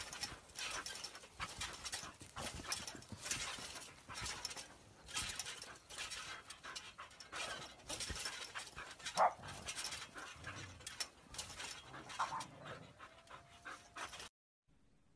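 Dogs panting hard as they play and bounce on a trampoline, quick irregular breaths that stop abruptly near the end.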